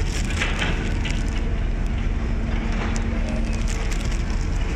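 Steady low rumble and hum of a large car ferry's engines, with scattered crackles and clicks about half a second in and again around three seconds.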